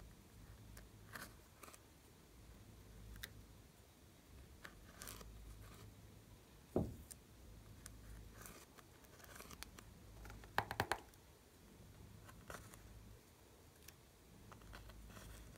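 Small plastic spatula scraping and digging pressed glitter eyeshadow out of a makeup palette pan: faint scratchy ticks and crumbling. There is a dull knock about seven seconds in, and a quick run of clicks a few seconds later.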